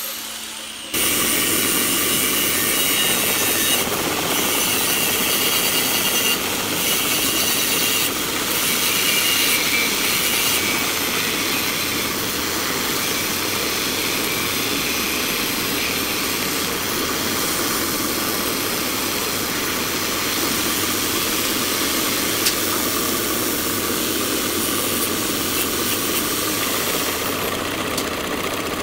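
Bench drill press running with a Forstner bit boring into wood: a steady motor drone with the shaving noise of the bit cutting. It comes up to full loudness about a second in.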